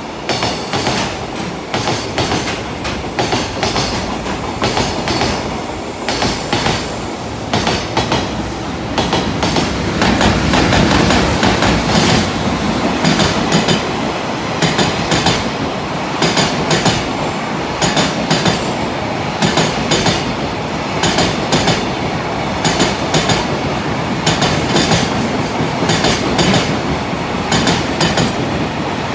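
Container freight wagons running through a station at speed, their wheels clattering over the rail joints in a steady clickety-clack rhythm. The clatter grows a little louder about ten seconds in.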